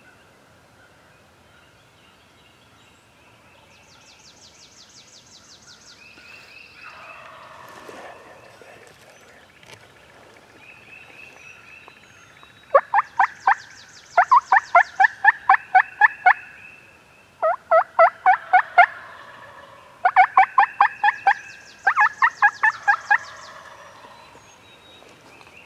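Wild turkey calling: five loud runs of sharp, rapid yelping notes, each one to two seconds long, starting about halfway in. Faint songbirds trill in the first half.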